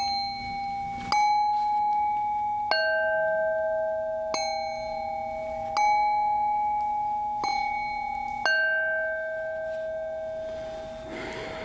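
Metal singing bowls struck in turn with a wooden mallet: seven strikes about one and a half seconds apart, alternating between two pitches, each ringing on long and overlapping the next.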